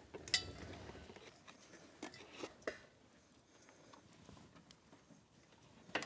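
Light clicks and taps of small parts being handled while a return spring and cardboard template are fitted. A sharp click about a third of a second in, a few softer ticks around two to three seconds in, and another click near the end.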